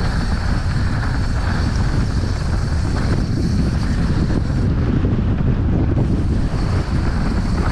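Wind rushing over the microphone while riding a mountain bike fast downhill, a steady loud rumble with no letup.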